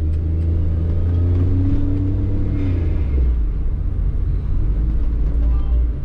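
Car engine running, a steady low rumble, with a faint higher tone that comes in for a second or so partway through.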